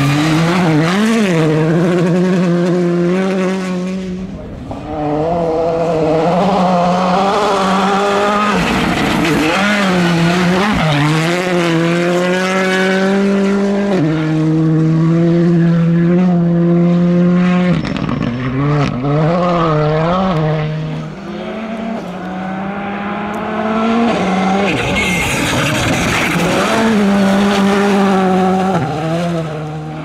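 Rally2 cars' turbocharged four-cylinder engines revving hard on a gravel stage, passing one after another. The pitch climbs and drops sharply again and again with the gear changes.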